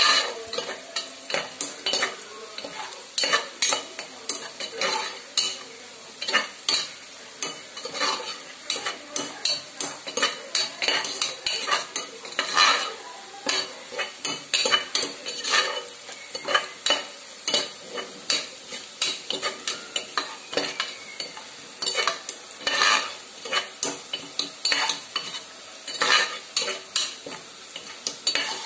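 Chicken frying in a steel pot while a spoon stirs it, with frequent irregular scrapes and clinks against the pot over a steady sizzle.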